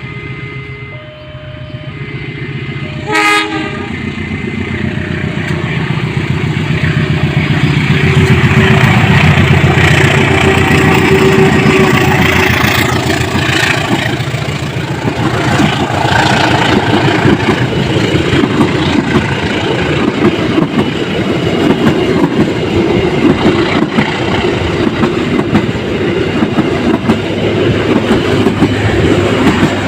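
The single-note horn of CC 201 92 12, a GE U18C diesel-electric locomotive, sounds one short blast about three seconds in. The locomotive and its train then come closer and pass, its engine running and the wheels clattering over the rail joints.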